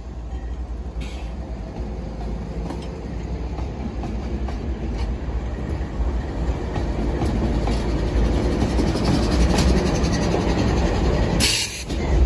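Freight train passing close by: CSX diesel locomotives' engines and wheels run in a steady, heavy rumble that grows gradually louder. A brief sharp hiss comes near the end as the last locomotive gives way to the container cars.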